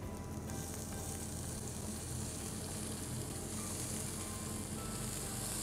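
Chopped onion and garlic frying in hot ghee in a large non-stick pan: a steady sizzle that starts about half a second in, with a spatula stirring them.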